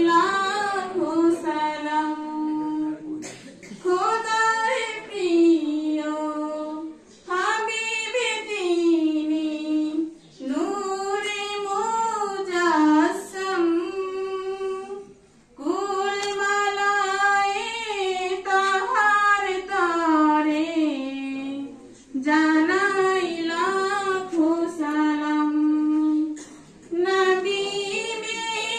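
A solo female voice sings unaccompanied into a handheld microphone, in slow phrases of long held notes with short pauses between them.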